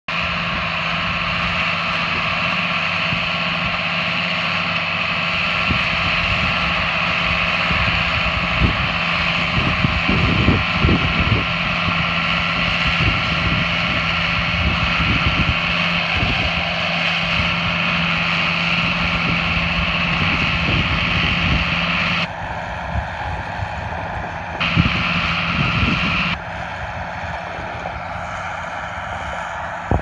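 Tractor engine running steadily while it pulls a working small square baler through the hay, with wind buffeting the microphone.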